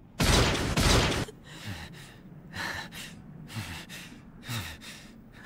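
A loud burst of noise about a second long from a cartoon fight sound effect, then heavy breathing: about four breaths roughly a second apart.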